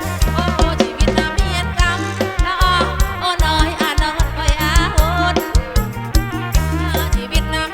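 Live kantrum, Khmer-Thai folk dance music, played by an amplified band: a steady pounding bass beat under a melody line with sliding, wavering pitch.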